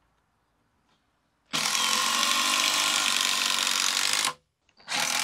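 Makita DTD153 18V impact driver hammering a screw into wood, with the Makita DDF484 18V drill/driver running in second gear alongside it. The tools start about a second and a half in and run loudly for about three seconds, then stop. After a short pause, power-tool sound starts again near the end.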